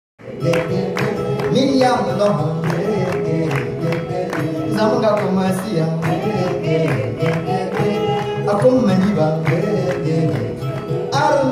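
Live music on stage: a man singing to a steady rhythm of sharp percussive strikes.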